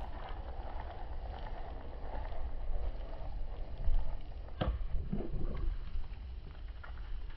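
Baitcasting reel and rod being handled close to the microphone over a low steady rumble, with one sharp click a little past halfway.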